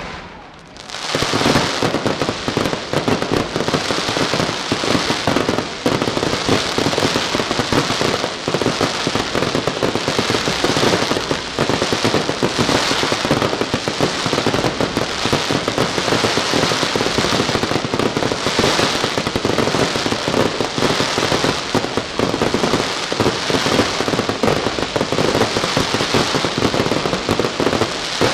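Fireworks crackling and popping in a dense, unbroken barrage. Crackling stars burst overhead while ground fountains spray sparks. It builds up about a second in, after a brief lull.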